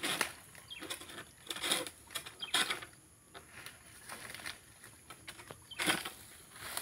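Pole-mounted pruning sickle being pulled against an oil palm frond, the fronds rustling and scraping in short strokes: about four in the first three seconds, then a pause, then one more near the end.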